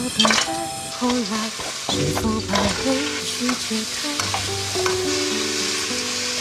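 Food stir-frying in hot oil in a wok: a steady sizzle as a spatula stirs and scrapes, with a few sharp knocks against the pan. Soft background music plays under it.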